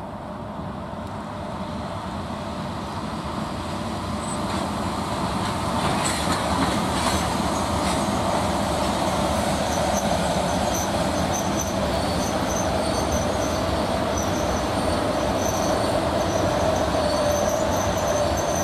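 Three-section 3ES4K 'Donchak' DC electric freight locomotive approaching and passing close by, its running noise growing louder over the first six seconds and then holding steady. A whine strengthens in the last few seconds, with thin high squeals on and off.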